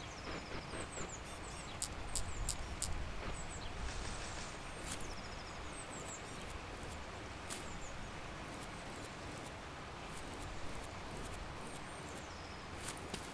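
Quiet forest ambience: a steady low rumble and hiss with a few short, faint high bird chirps near the start and again near the end, and scattered soft clicks.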